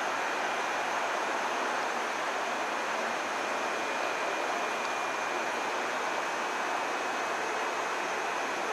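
Steady, even hissing noise with a faint, steady high whine running through it; no train passes.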